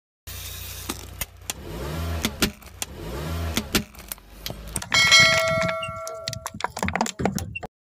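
Motorcycle engine running with two rising-and-falling revs, while the tyre rolls over objects with many sharp cracks and pops. The loudest is a crack about five seconds in, followed by a brief ringing tone. The sound cuts off suddenly near the end.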